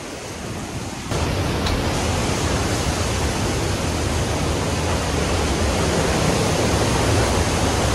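Hurricane wind and driving rain, a steady rushing noise that jumps louder about a second in and then holds.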